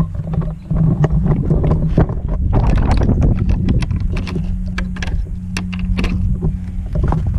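A steady low motor hum with many sharp clicks and knocks over it.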